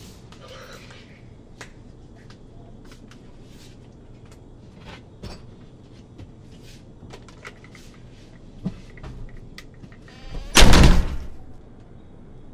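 Faint scattered clicks and rustles, then about ten and a half seconds in a door slams shut, loud and sudden, with a short ringing tail.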